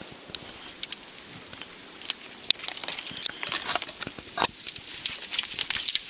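Footsteps crunching in snow: irregular crisp crackling that gets denser about two seconds in, with one duller step about four and a half seconds in.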